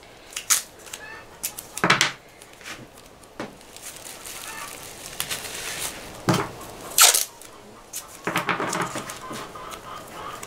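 Masking tape ripped off the roll in several short, sharp tears and plastic bags crinkling as they are taped down. Chickens squawking faintly in the background with short pitched calls.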